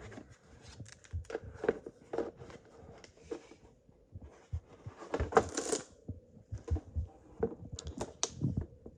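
Cardboard box contents and packaging being handled: scattered clicks, taps and rustles, with a louder rustle about five seconds in.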